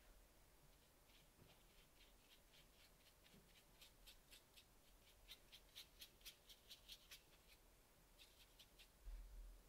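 Faint, quick strokes of a pointed round watercolor brush across textured watercolor paper, about three or four a second, dying away after about seven seconds with a few more just after. A soft low bump comes near the end.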